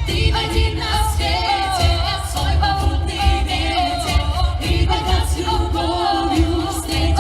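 Vocal ensemble singing a song, several voices in harmony over a backing track with a steady low beat.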